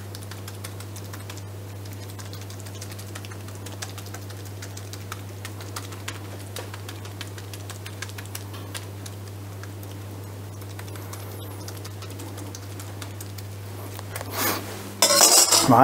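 A metal spoon spreading and pressing grated raw potato mixture on a parchment-lined baking tray: faint, irregular little clicks and scrapes over a steady low hum. A louder brushing noise comes near the end.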